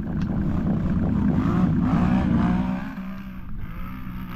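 ATV engine revving under throttle, its pitch rising, then easing off to a lower steady run about three seconds in.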